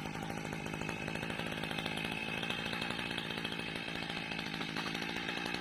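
Small petrol engine of a motorized oil-palm pruning pole (mesin egrek) running steadily at working speed, with a fast even buzz.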